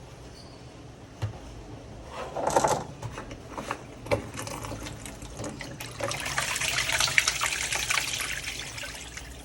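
Panasonic NA-V160HDH drum washing machine running with a steady low hum, water splashing once and then rushing inside it for a few seconds, amid small clicks. Since its main board was replaced the machine makes an abnormal noise.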